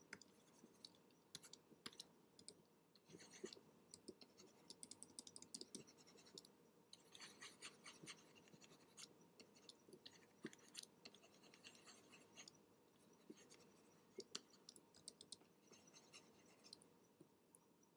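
Faint scratching of a pen stylus on a graphics tablet, in many short, uneven strokes with a few light clicks, as texture is brushed on in circular motions.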